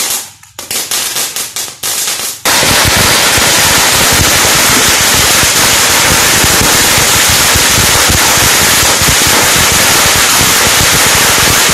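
A string of firecrackers going off. There are a few separate loud bangs, then from about two and a half seconds in an unbroken, rapid crackle of bangs keeps going.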